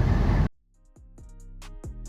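A loud, steady vehicle rumble cuts off suddenly half a second in, and background music follows: a hip-hop-style beat with deep bass-drum hits that drop in pitch and crisp hi-hat ticks.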